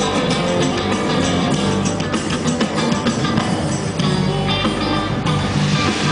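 Music with guitar and drums.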